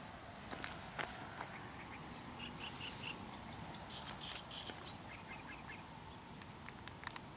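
Birds calling: two quick runs of short, high chirps, the first about two and a half seconds in and the second about five seconds in, over a faint outdoor hiss with a few light clicks.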